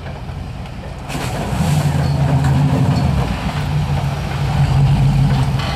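Rock crawler buggy's engine revving up about a second in and then running steadily at higher revs as the buggy drives down a steep dirt bank into a muddy creek.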